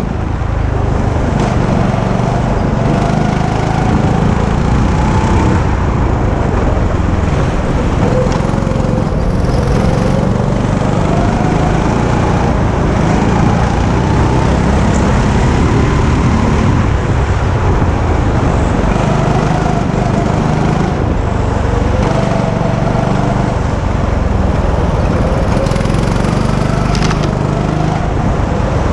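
Go-kart engine running hard, heard from on board, its pitch rising and falling again and again as the kart brakes into corners and accelerates out of them.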